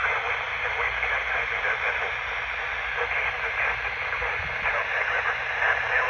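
Midland GXT walkie-talkie speaker giving a steady, loud hiss of static while it is receiving.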